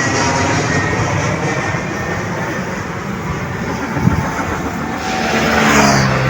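Loud, steady engine noise with several steady tones through it, a single knock about four seconds in, and a falling pitch sweep near the end as something passes close by.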